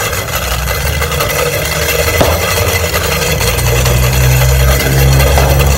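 A vehicle engine being revved as a New Year noisemaker. It runs steadily at first, then is held at a higher speed from about halfway through.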